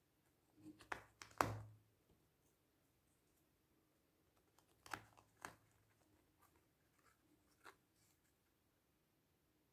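Wooden jigsaw puzzle pieces knocking and clicking as they are fitted into a wooden tray: a few quick knocks about a second in, the loudest just after, two more around five seconds and a single one near eight seconds, with near silence between.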